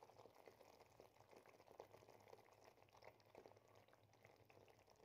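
Faint bubbling of thick curry gravy simmering in a pan, with small irregular pops.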